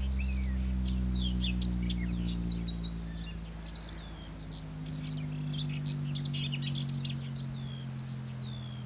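Wild birds chirping and singing, many quick rising and falling calls, over sustained low bass notes from a Bluetooth speaker playing music; the bass fades and changes pitch about halfway through.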